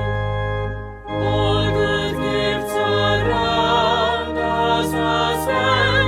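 Choir singing with organ accompaniment, with a brief break between phrases about a second in.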